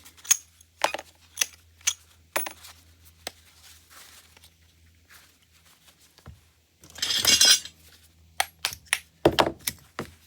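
Small metal scrap parts from a dismantled motor clinking as they are handled and set down, a string of separate sharp clinks with one louder clattering rattle about a second long roughly two-thirds of the way through.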